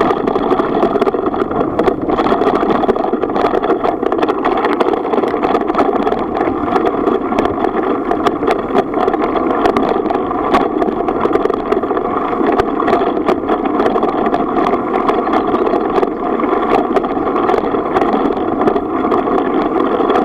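Bicycle rolling along a gravel track: a steady rumble of tyres on loose stone with a constant hum and frequent small clicks and rattles.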